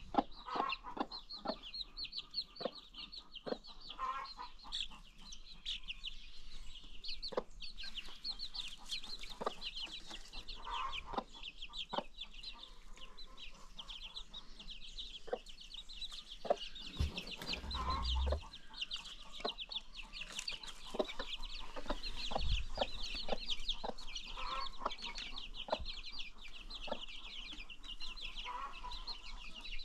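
A flock of baby chicks peeping in a dense, continuous high-pitched chorus, with a few lower clucks mixed in. There are a couple of dull low thumps around the middle.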